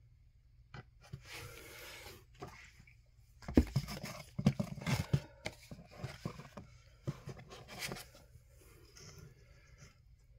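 Comic books being lifted out of and shuffled against each other in a cardboard box: rustling and scraping of paper and card with light knocks, busiest from about three and a half to five seconds in.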